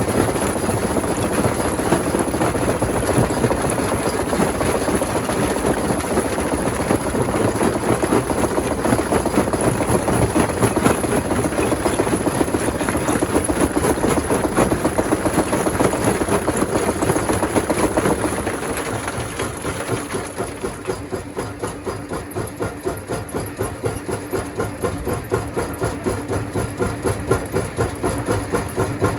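Rock crusher machinery running with a dense, steady grinding noise; about two-thirds of the way through it drops a little in level and settles into an even, rhythmic pulsing.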